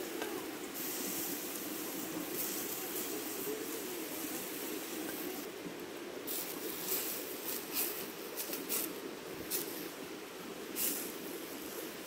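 Charcoal embers crackling and popping under a whole chicken roasting on a bamboo spit, with a run of sharp pops in the second half, over a steady rushing noise.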